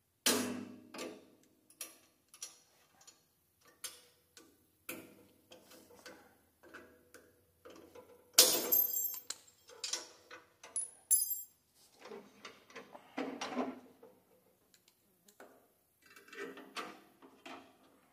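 Metal clicks, taps and clanks of hand tools and pins being worked on a snow plow's steel mounting bracket on a garden tractor. The loudest is a ringing metal clank about eight seconds in, with a shorter ringing clink a few seconds later.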